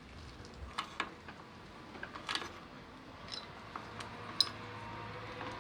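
Pipe cutter being turned around the steel throttle sleeve on a Simson S51 handlebar, crimping it to take up play: scattered light metallic clicks and ticks at an uneven pace.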